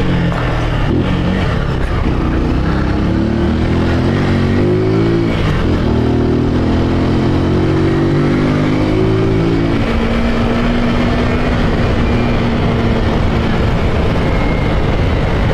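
Honda Titan 150 single-cylinder motorcycle engine, carbureted and running with no air filter or intake hose, accelerating under load: the revs climb, dip at a gear change about five seconds in, hold high, then fall back to a lower steady note about ten seconds in.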